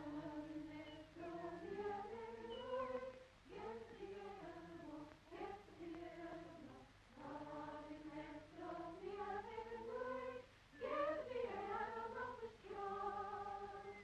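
Unaccompanied singing: sung phrases separated by short breaks for breath.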